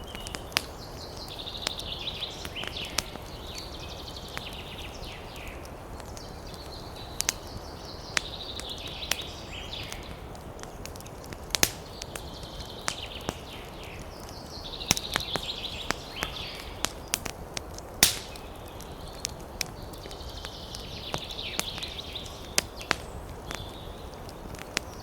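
Wood campfire crackling with sharp, irregular snaps, one especially loud about three-quarters of the way through. A bird sings short phrases of a couple of seconds each, several times.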